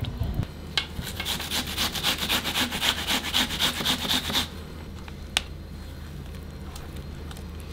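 Onion being grated by hand on a flat stainless-steel grater: quick, even rasping strokes, about five a second, that begin about a second in and stop after about three and a half seconds, followed by one light click.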